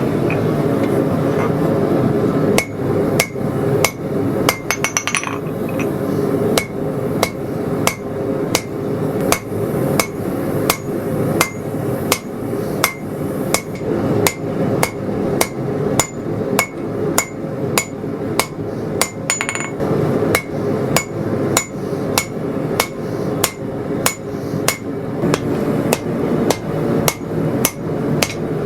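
Hand hammer striking hot steel on an anvil horn, drawing out and tapering a knife tang. The blows come at about two a second from a couple of seconds in, each with a brief ring, over a steady rushing noise. Around five seconds in there is a quick flurry of light taps.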